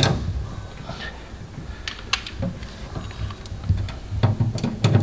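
The bulb-cover latch under a microwave being fitted back on by hand: scattered small clicks and taps, more of them near the end.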